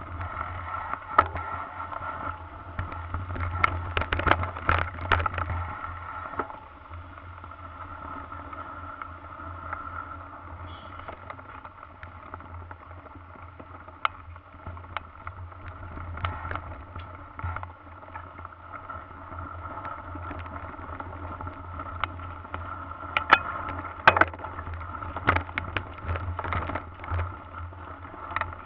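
Onboard sound of a mountain bike ridden over a dirt singletrack: a steady rumble of tyres and wind with frequent rattles and knocks from the bike over bumps. The knocking is busiest in the first few seconds and again about three-quarters of the way through.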